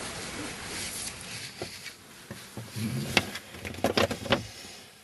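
A large paper map being pulled out and unfolded, the paper rustling with a handful of sharp crackles in the second half.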